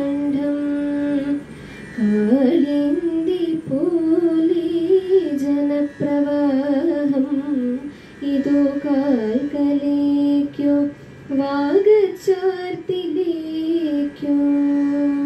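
A young woman singing a slow, unaccompanied melody into a handheld microphone, holding long notes and bending between them in ornamented glides, with a few short breaks for breath.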